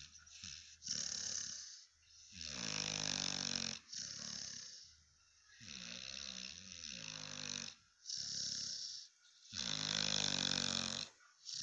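A Cane Corso dog snoring in its sleep: a steady run of about six long snores, each lasting one to one and a half seconds, with short pauses between breaths.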